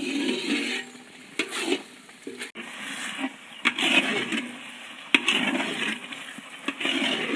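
Long-handled ladle stirring thick dodol paste of jaggery, rice flour and coconut milk in a large metal pan, heard as separate strokes roughly one a second.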